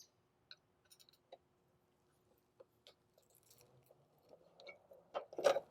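Sparse light clicks and knocks of a screwdriver and parts as the roll screen's motor is worked free of its retaining clip and the roll tube lifted out of the housing, with a louder cluster of knocks near the end.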